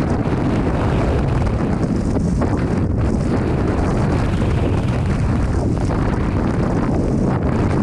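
Freefall airstream rushing over a helmet-mounted action camera's microphone: a loud, steady wind rush, heaviest in the low end.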